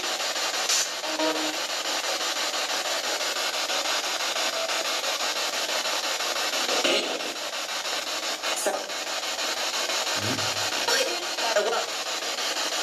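Spirit box (radio-sweep ghost box) putting out continuous hissing static as it scans through radio stations, broken by brief clicks and short snatches of voice-like sound.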